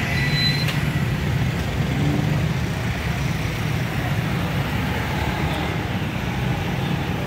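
Busy street traffic: motorcycles, auto-rickshaws and cars passing, a steady low rumble of engines and tyres.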